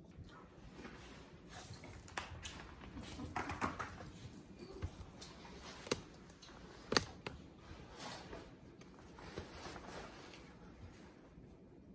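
Rustling and handling noises with scattered light clicks and taps, and one sharp click about seven seconds in.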